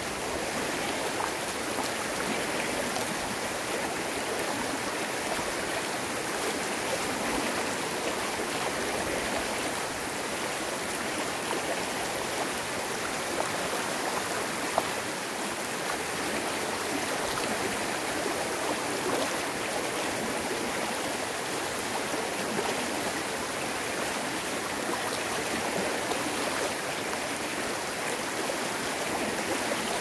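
Mountain stream running over bare rock slabs and spilling into a pool in small cascades: a steady, even rush of flowing water.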